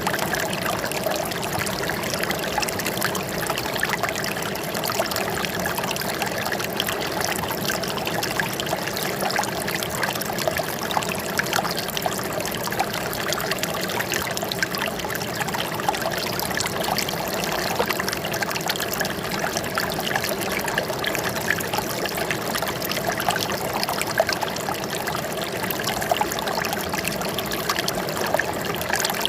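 Flowing water trickling and splashing steadily, like a small stream or cascade.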